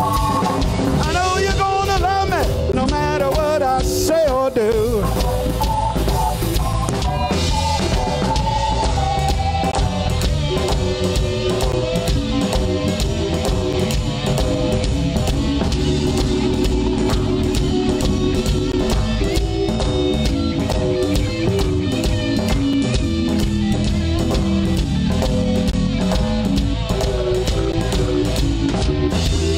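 Live blues band playing: an electric guitar solo with bent, wavering notes over bass guitar and a drum kit.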